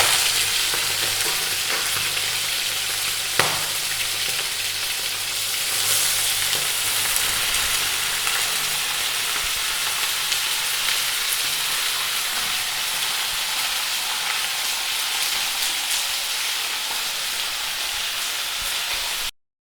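Food frying in hot oil in a pan: a steady sizzle with small crackles and one sharp pop about three seconds in. It cuts off suddenly near the end.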